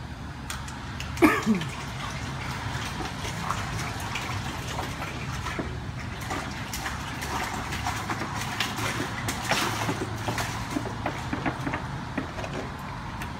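Milk pouring and glugging from a plastic gallon jug into a plastic tote, over a steady low hum. About a second in, a brief loud sound falls in pitch.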